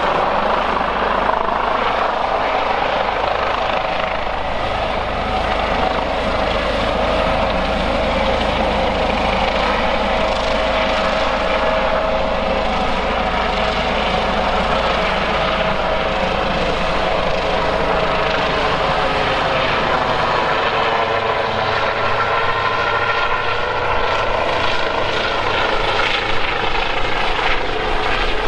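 Airbus H145 helicopter hovering low, its rotors and twin turbines running loudly and steadily while it fills an underslung firefighting water bucket. The whine shifts in pitch during the last several seconds.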